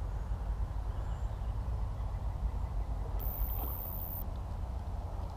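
Steady low rumble of wind and river water buffeting a GoPro's microphone. A brief high hiss lasts about a second, starting about three seconds in.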